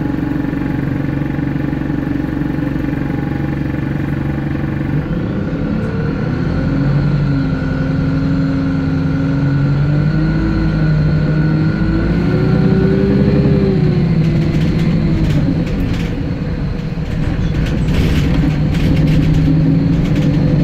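Wright StreetLite single-deck bus engine heard from inside the passenger saloon: a steady hum at first, then from about five seconds in its pitch rises and falls as the bus accelerates. Rattling and clicking from the bus interior join in near the end.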